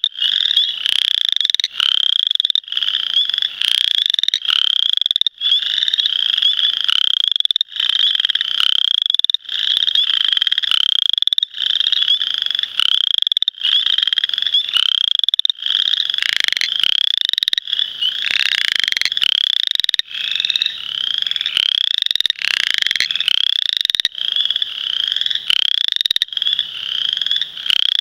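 Western chorus frogs (Pseudacris triseriata) calling: a steady series of short trills, each rising in pitch, about one a second. This is the males' mating-season call, with other frogs' calls overlapping at times.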